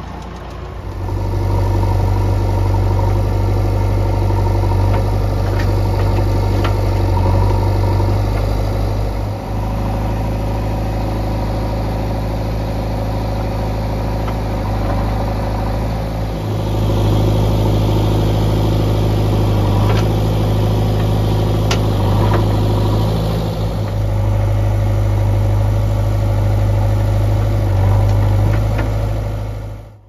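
Diesel tractor engine idling close by, a steady low drone whose note shifts a few times, with a few sharp clicks.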